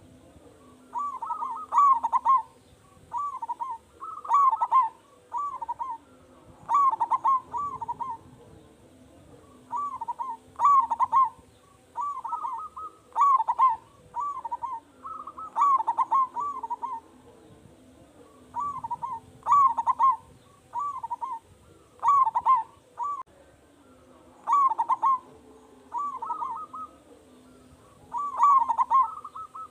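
Zebra dove (perkutut) cooing: short rolling phrases of three or four quick notes, repeated about every one and a half to two seconds.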